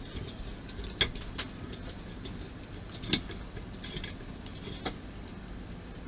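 Scattered small clicks and taps of model-kit parts and a small screwdriver being handled during assembly, the sharpest about a second in and just after three seconds, over a steady low background hum.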